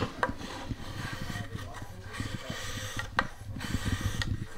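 Hand-held shaving tool cutting and rubbing across the curved wooden back of a chair in quick short strokes, the dry scrape of steel on wood, with a few sharp clicks.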